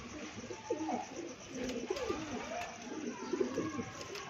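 Domestic pigeons cooing: several low, wavering coos overlapping throughout.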